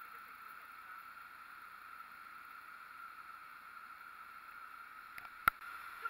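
Waterfall in heavy flow, a steady rushing of falling water. A single sharp click about five and a half seconds in.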